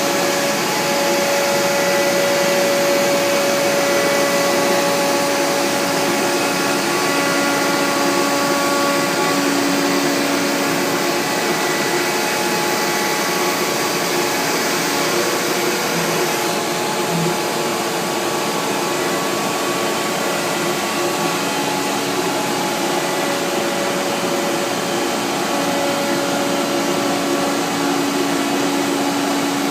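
CNC router milling MDF panels, running steadily: a constant hiss with several steady whining tones that come and go and shift a little in pitch as the cut goes on.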